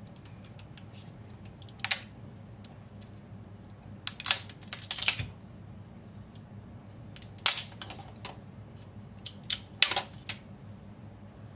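3D-printed plastic parts being scraped and snapped off a metal 3D printer bed with a plastic scraper: sharp clicks and cracks in small clusters, about four times, over a steady low hum.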